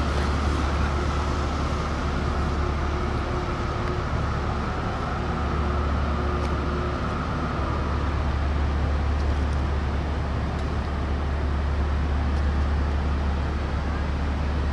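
Large car ferry Orange Osaka's engines running as a steady low drone, with a faint higher whine that fades out about eight seconds in.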